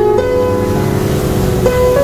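Instrumental background music: slow, sustained chords of pitched notes that change every half second or so.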